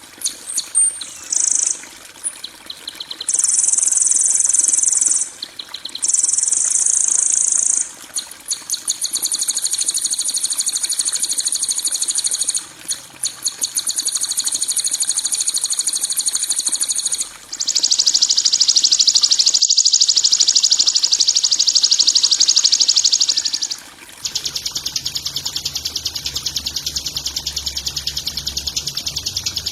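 Harsh, rapid, buzzing high-pitched trills of a songbird 'masteran kasaran' training recording, sounding like insects or crickets, in stretches of a few seconds with short breaks. About two-thirds of the way in a lower-pitched trill takes over, and a low hum joins it near the end.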